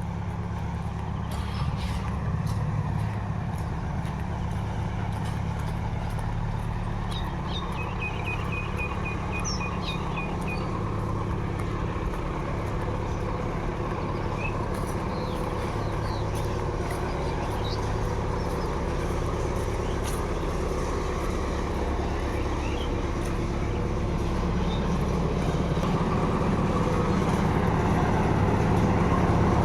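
Road roller's engine running steadily with a low rumble, growing louder toward the end.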